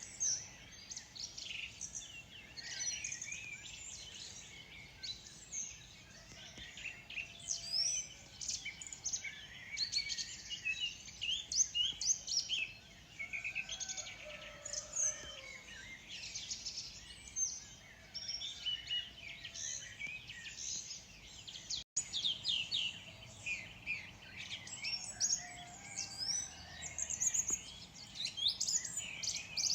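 Morning dawn chorus: many birds chirping and singing at once, with dense overlapping high chirps and trills. The sound cuts out for an instant about 22 seconds in.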